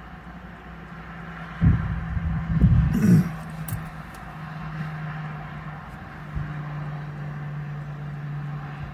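Steady low hum inside a car's closed cabin, with a few loud low thumps and rumbles about two to three seconds in.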